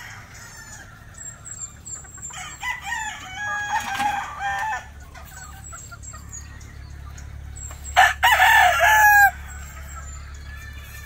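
Gamefowl roosters crowing twice: one crow about two seconds in, and a louder, closer one of about a second and a half near the end.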